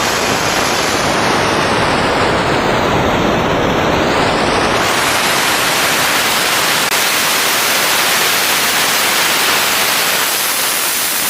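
Steady, loud rushing hiss of spray in a CNC machine tool, its upper tone shifting slightly during the first few seconds.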